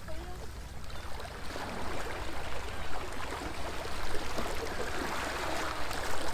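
Small waves of the Yellow Sea lapping and gurgling against a stone seawall, a steady wash of water noise.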